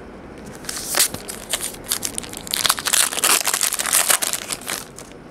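Plastic-foil trading-card pack wrapper crinkling and being crumpled by hand, a dense run of crackles lasting about four seconds.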